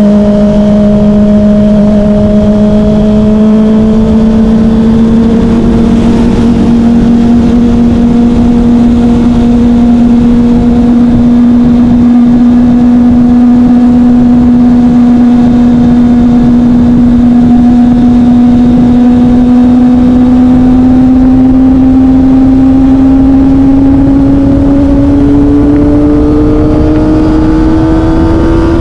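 Kawasaki ZX-25R's inline-four engine with a Yoshimura R-11 exhaust, cruising steadily in sixth gear under wind rush, then climbing in pitch over the last few seconds as the bike accelerates.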